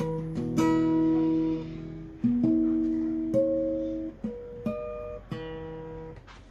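Acoustic guitar played fingerstyle: plucked chords and single notes about a second apart, each left to ring and fade away.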